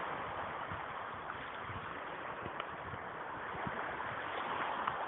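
Gentle sea waves washing against a rocky shoreline, a steady soft wash, with irregular low thumps of wind buffeting the microphone.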